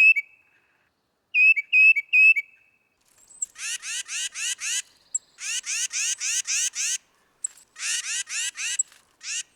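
Tufted titmouse calling: three clear whistled notes, then from about three and a half seconds in, runs of rapid, harsh, falling notes, about six a second, repeated in several bursts.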